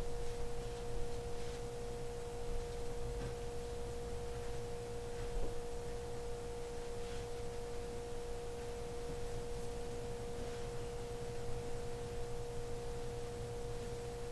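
A steady pure tone held without wavering, with a fainter second tone a little higher and a low hum beneath.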